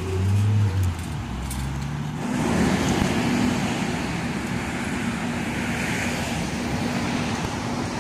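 Road traffic: a motor vehicle's low engine note, rising in pitch, for the first two seconds. Then, after a cut, a steady wash of traffic noise with a low hum.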